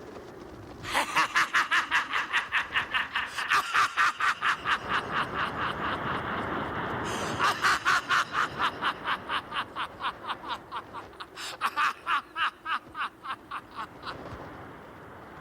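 A person laughing loudly and at length in three bouts of rapid ha-ha-ha pulses, about six a second, each bout trailing off.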